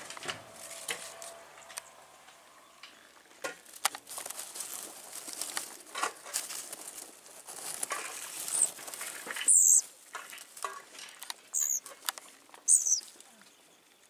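Dry grass and twigs of a bird's nest rustling and crackling as a fledgling is handled and set back in it, with scattered small knocks. In the second half come about four very short, high-pitched bird chirps.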